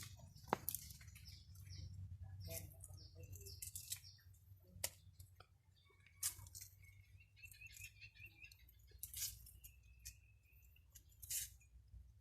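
A small bird chirping faintly, with a short rapid trill about eight seconds in, among scattered sharp clicks and a steady low rumble.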